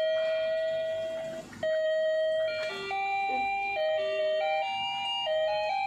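Toy ice cream shop stand playing its electronic jingle: a simple beeping melody of plain stepped notes, with a brief drop about one and a half seconds in.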